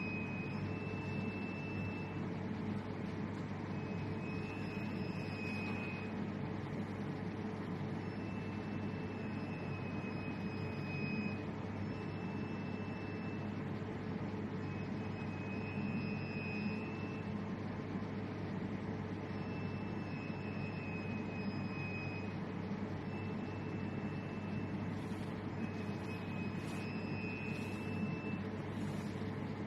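Steady machine hum with fan-like noise, overlaid by a high, pure tone that switches on and off every second or two.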